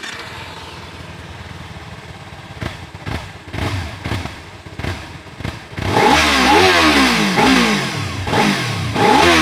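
Kawasaki Z250's 249 cc liquid-cooled four-stroke engine idling through its exhaust, then revved repeatedly for the last few seconds, loud, its pitch rising and falling with each blip of the throttle.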